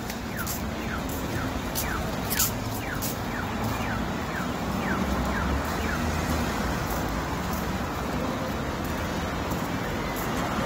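Pedestrian crossing's audible signal chirping: short falling electronic chirps, about three a second, that stop about halfway through. Street traffic runs steadily underneath.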